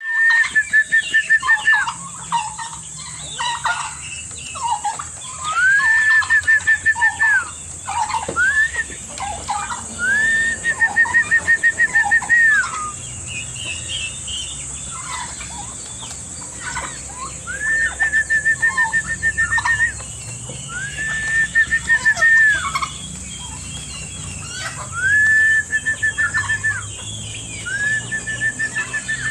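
Farmyard poultry flock of chickens, roosters and turkeys calling: a loud, high, pulsing call about one to two seconds long repeats every few seconds, rising at the start and dropping off at the end, over softer clucks and chirps.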